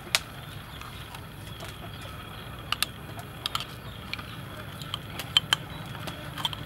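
A handful of light clicks and taps from a plastic jar and fingers knocking against a ceramic bowl as shrimp paste is scraped out. The sharpest click comes just at the start, and two come close together about five seconds in, over a steady low background hum.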